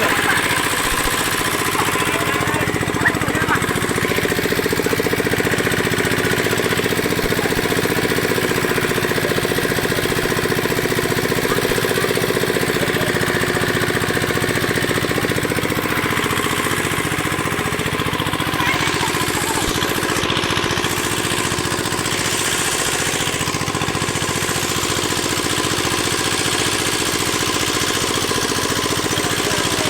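A small engine running steadily at an even speed, with a rapid regular chugging.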